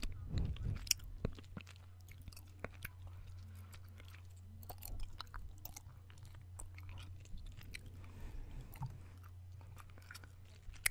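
Gum being chewed close to the microphone: irregular wet clicks and smacks of the mouth, more of them in the first second, over a steady low hum.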